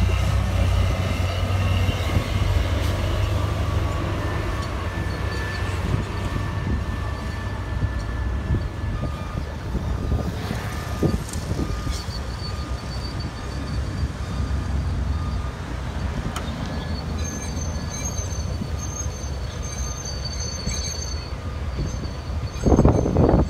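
Heavy diesel dump truck engines running at low speed, a steady low rumble, with thin high squeals coming and going over it and a brief louder burst near the end.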